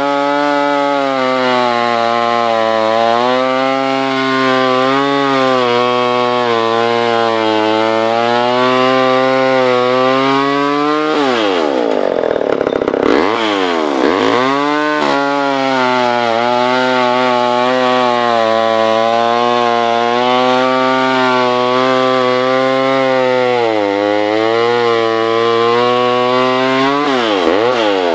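Poulan-built Ridgid 590 two-stroke chainsaw with an unsharpened chain cutting through a log at full throttle, its engine note held down and wavering under load. About halfway through it races up and drops back as the chain leaves the wood, then bogs into the cut again, and near the end it revs up as it cuts through.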